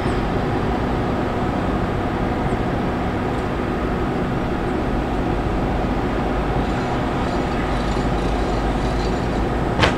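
Steady, loud mechanical drone of running airport machinery, with a few faint steady tones in it, and one sharp clank near the end.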